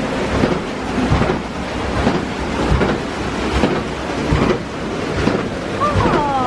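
Rushing water from the waterfalls and streams, a loud steady noise with a rough, pulsing texture. Near the end comes a short falling vocal sound.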